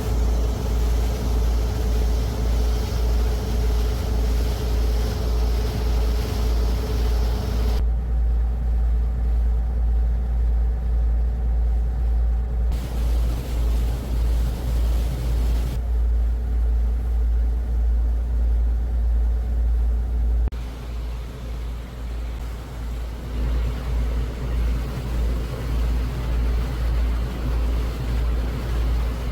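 Low, steady rumble of a vehicle on the move, pulsing about twice a second, that changes abruptly several times and drops somewhat in level about two-thirds of the way through.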